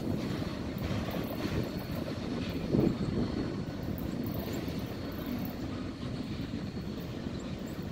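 Freight train's boxcars rolling along the track, a steady rumble of steel wheels on rail with a single louder clunk about three seconds in.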